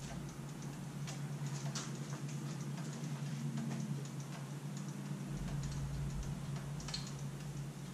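Breaded eggplant slices frying in hot oil, sizzling with scattered small crackles and pops as the oil comes up to frying heat, over a steady low hum.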